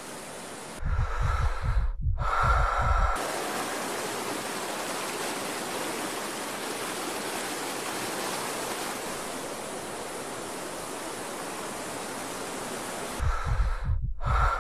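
Steady rush of a fast river over boulder rapids, a dense even noise of water. Near the start and again near the end, irregular low rumbling pulses cover it.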